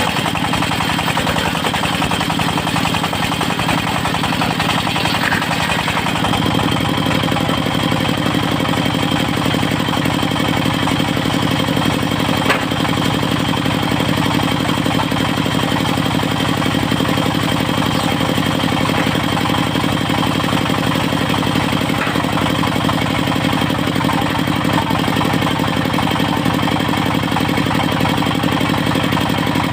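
Diesel engine of a portable circular sawmill running steadily with a rapid knocking beat. About six seconds in, its note shifts and then holds.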